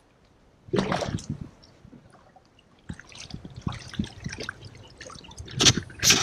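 Pool water splashing and dripping as a Bernese mountain dog paddles to the edge and hauls itself onto the step, wet and carrying a ball. There is a loud splash about a second in, scattered splashes and drips after it, and the loudest splashing near the end as the dog climbs out.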